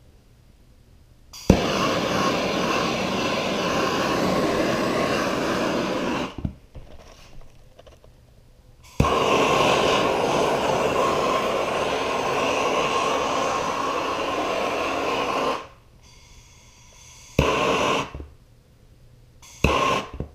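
Small MAP gas hand torch burning with a steady rushing hiss as its flame is swept over freshly poured epoxy resin to pop air bubbles. It fires in two long bursts of about five and six seconds, each starting abruptly with a click, then two short bursts near the end.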